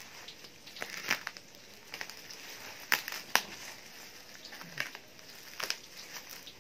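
Black plastic mailer and bubble wrap crinkling as hands cut and pull it open with a utility knife, with scattered sharp crackles; the two loudest come close together about three seconds in.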